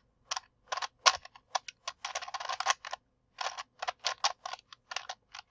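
A plastic 5x5x5 Rubik's cube being turned by hand, its layers clicking and clacking in quick irregular runs, with a short pause about three seconds in.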